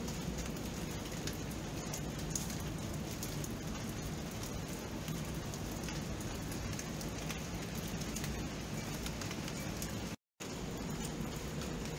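Steady rain falling, an even hiss with scattered small drop ticks. The sound cuts out completely for a split second about ten seconds in.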